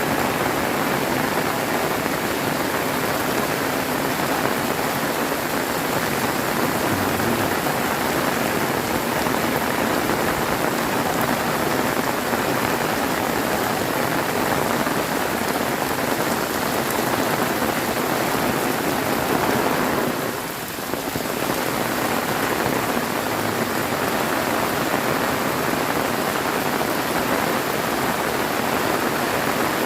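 Heavy rain pouring down in a dense, steady hiss, dipping briefly about two-thirds of the way in.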